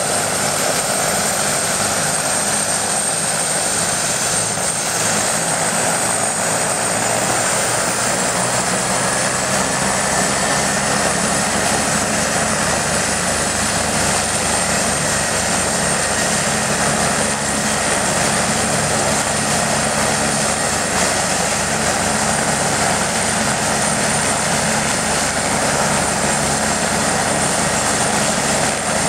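Eurocopter EC 145's twin turboshaft engines and main rotor running on the ground: a steady high turbine whine over the rotor's noise, the whine rising slightly in pitch about eight seconds in.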